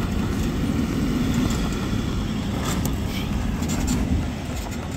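Land Rover Discovery's engine pulling steadily as the 4x4 climbs a loose gravel and rock slope, its tyres crunching over stones, with a few sharp clicks of stones about halfway through.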